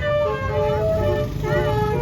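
Basuri telolet horn on a bus playing a melody of short held notes, several sounding together, over the low rumble of the bus's engine.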